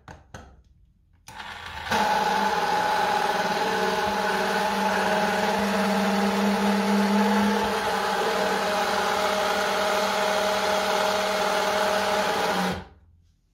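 Small battery motor of a toy stand mixer whirring steadily as its beaters spin. It starts about a second and a half in, after a couple of clicks, and cuts off near the end.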